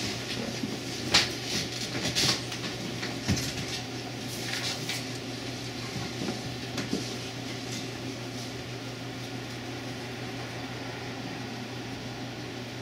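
People settling in at a table: a few scattered small knocks and clinks of chairs, glasses and tableware over the first several seconds, then only a steady low hum of room noise.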